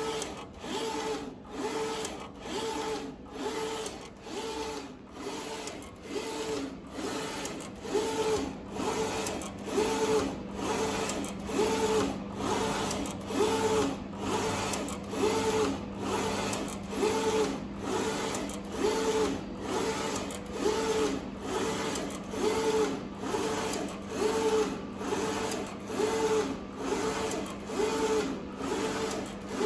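UV inkjet printer running, its print-head carriage sweeping back and forth about once a second over a steady hum.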